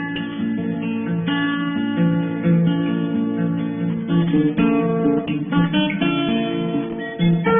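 Background music played on acoustic guitar, plucked and strummed notes in a steady flow.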